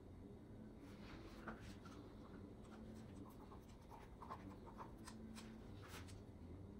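Faint, scattered light taps and rubbing from a gloved hand handling a small cup on the work board and table, between about one and six seconds in, over a low steady room hum.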